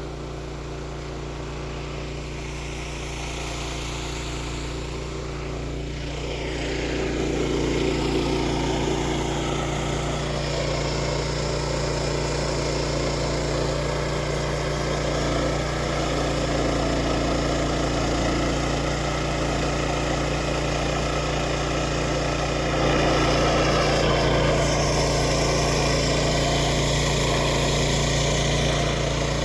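Engine running steadily, getting louder over the first several seconds and stepping up again about 23 seconds in.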